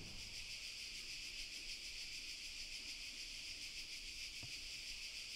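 Faint, steady high-pitched hiss.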